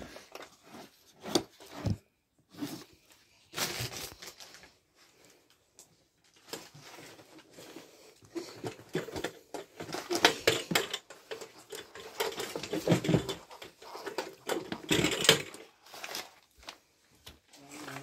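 Irregular rustling, scraping and knocking of things being handled and moved close to the microphone. It comes in scattered short bursts at first, then grows denser and louder in the second half.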